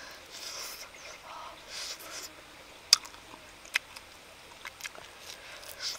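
Close-up eating sounds of a person chewing grilled beef rib meat: soft wet chewing and sucking, with several sharp lip smacks, the loudest about three seconds in.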